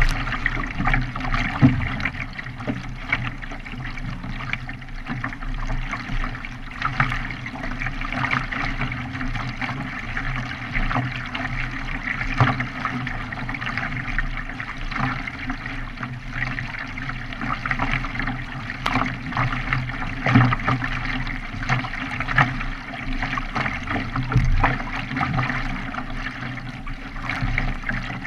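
Water sloshing and trickling around a K1 racing kayak as it is paddled, with frequent small splashes from the paddle blades and a steady wash of water along the hull.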